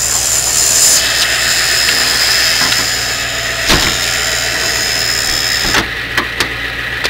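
School bus back-door alarm buzzing steadily over the bus's diesel engine idling. There is a knock partway through, and the buzzer cuts off suddenly with another knock near the end, followed by a few light clicks.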